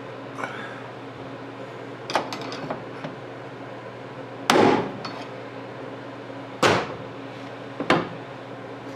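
Sharp metal knocks and clanks from hand tools and steel parts during door-hinge work: a few light clicks, then three loud strikes about a second or two apart, each ringing briefly.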